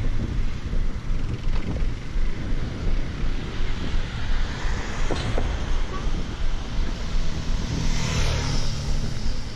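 Road traffic going by and wind on the microphone, with a motorcycle passing close near the end.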